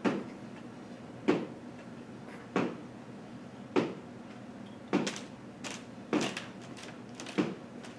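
Heels of athletic shoes knocking down onto a hardwood floor in a steady rhythm during heel raises, about seven times at roughly one every 1.2 seconds, with a few softer knocks between.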